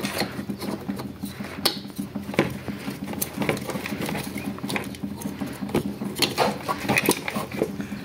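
Handling noise of a washing-machine spin-dryer motor being held and turned over by hand, its metal housing and wires knocking and scraping against the plastic frame in irregular small clicks and rattles, over a steady low hum.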